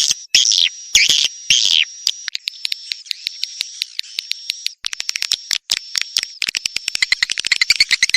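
Swiftlet calls: a lure track of rapid, high chirps and clicks over a thin steady whistle. About two thirds of the way in, the chirps speed up into a fast buzzy rattle.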